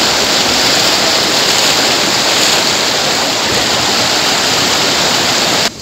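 A flooded river rushing over rocks in brown white-water rapids, a loud, steady rush of water. It cuts off suddenly near the end.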